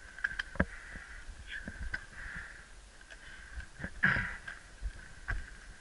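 Mountain bike riding fast down a dirt singletrack: scattered knocks and rattles as it bumps over the trail, loudest about four seconds in, over a steady buzz.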